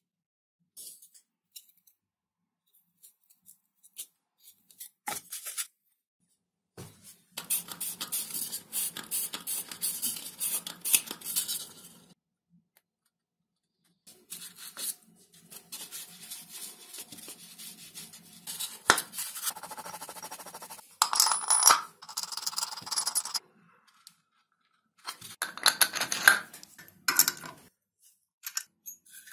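Hand-work on stacked XPS foam parts: rubbing and scratching of the foam, with a steel bolt, washers and nut clinking as they are handled and fitted. It comes in three separate bursts with quiet pauses between.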